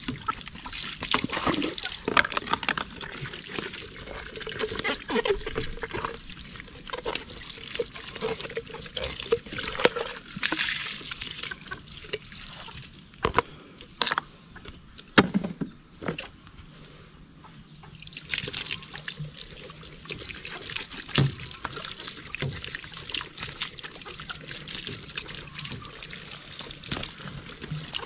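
Water from a garden hose trickling and splashing into plastic poultry waterers, with knocks and clicks of the plastic containers being handled.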